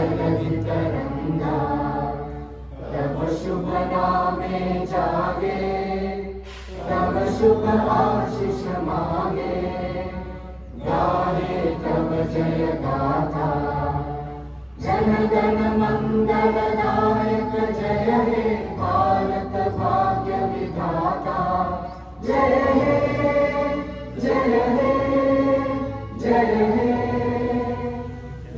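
A group of people singing together in unison, in phrases of about four seconds with short breaks between them.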